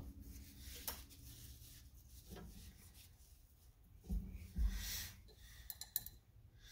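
Quiet room with a few soft thumps and a brief rustle about four to five seconds in, then a few light clicks.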